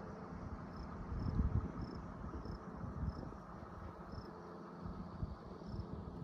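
Wind buffeting the microphone in an open field: an uneven low rumble, strongest about a second and a half in. Over it, a faint short high chirp repeats roughly every half second.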